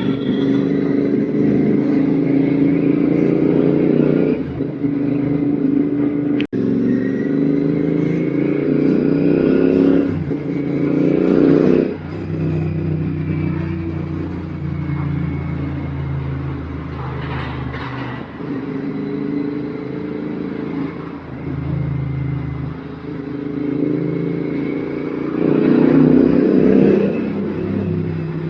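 Royal Enfield Continental GT 650's parallel-twin engine through an RRP aftermarket exhaust, running on the road and pulling up through the revs several times, its pitch rising and then dropping back at each gear change.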